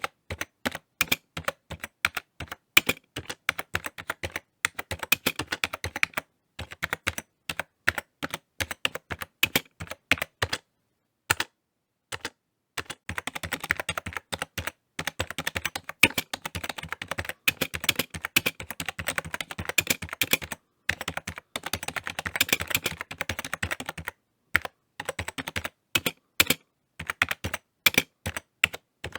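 Typing on a computer keyboard: irregular key clicks, in quick bursts with short pauses, a longer pause a little before the middle, and a fast run of typing through the middle.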